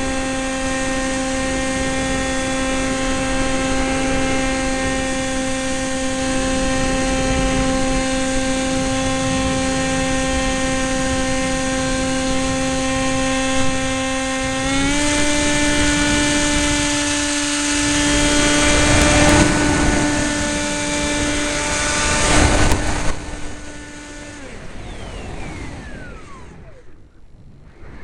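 Electric motor and propeller of a Sky Surfer RC plane running with a steady whine that steps up slightly in pitch about halfway through as the throttle is opened, with rushes of wind noise. A few seconds before the end the motor cuts off, leaving wind noise as the plane glides.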